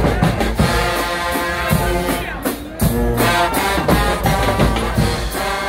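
Guggenmusik band playing live, loud: held brass chords over a steady beat of drums.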